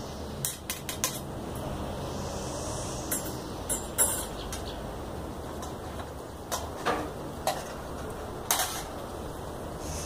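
Thin binding wire being handled and twisted around a bonsai root ball, its ends clicking and tapping against the tray: scattered sharp clicks, the loudest about four seconds in.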